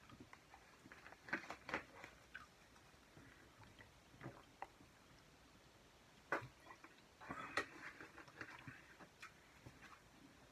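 Faint, scattered crunching and crackling of Doritos tortilla chips being eaten, with a few sharper clicks about 1.5, 6 and 7.5 seconds in.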